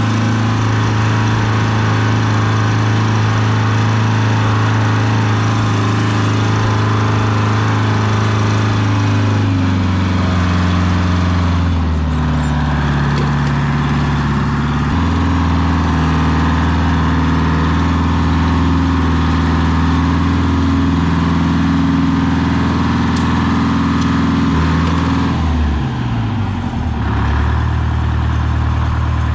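Oliver farm tractor engine running steadily under way, its speed dropping and picking up again a few times.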